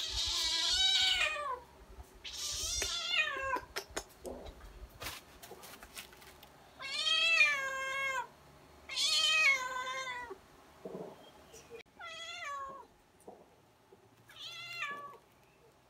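A calico cat meowing repeatedly, about six drawn-out meows with quiet gaps between them, several falling in pitch.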